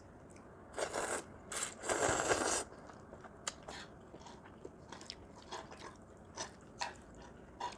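Close-up eating sounds: crunching and chewing, with a few louder noisy bursts in the first three seconds followed by small scattered clicks and smacks.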